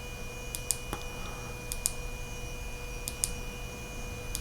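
Astrolux S42S flashlight's switch clicked four times, about one and a quarter seconds apart, each a quick double click, stepping the light up through its output levels. A faint steady hum runs underneath.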